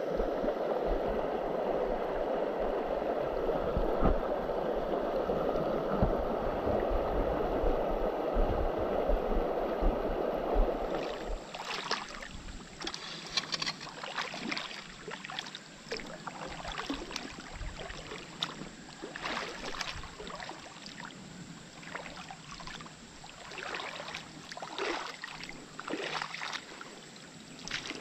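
Creek water running steadily in an even rush for about the first eleven seconds, then cutting off abruptly to a quieter background with scattered light clicks and a steady high-pitched whine.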